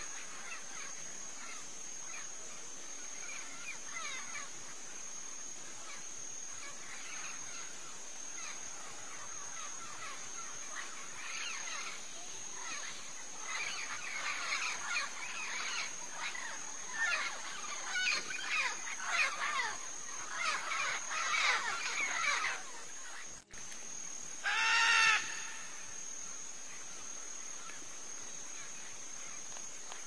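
Blue-and-yellow macaws chattering and calling in a tree, busiest in the middle, over a steady high-pitched insect buzz; about five seconds from the end, one loud harsh squawk.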